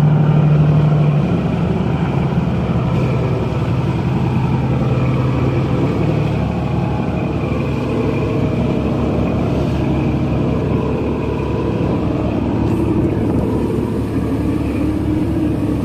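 Marine diesel engines of a crew boat running at manoeuvring power alongside, a steady deep drone with a low hum, over the churn of its propeller wash. The strongest hum eases about a second in.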